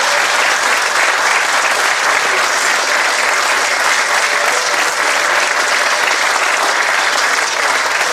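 An audience applauding: steady, sustained clapping that keeps an even level.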